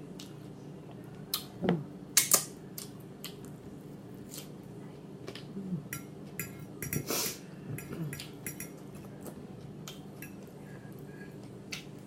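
Cutlery and dishes clinking during a meal: scattered sharp clicks of a fork against a plate, the loudest pair about two seconds in and another cluster around seven seconds.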